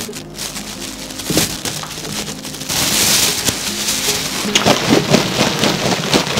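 Raw potato cubes tipped into a plastic bag of corn starch, then the bag shaken hard to coat them: crinkling plastic and cubes tumbling inside, the shaking starting about three seconds in and getting louder. Soft background music plays underneath.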